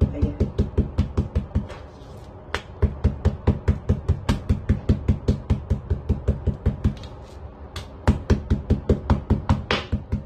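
A kitchen knife's blunt spine pounding raw pork on a plastic cutting board to tenderize it: rapid, even knocks about five a second, pausing briefly twice.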